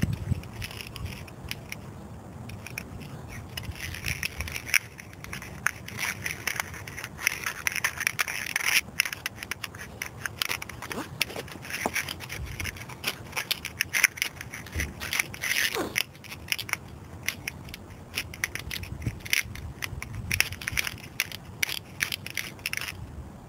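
Black corrugated plastic split-loom tubing and heavy power cable being handled and worked together by hand: a continuous run of irregular scrapes, crackles and clicks.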